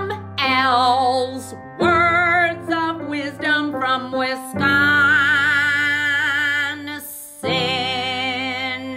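Show theme song: a woman singing with vibrato over steady sustained accompaniment notes, in phrases separated by short breaks.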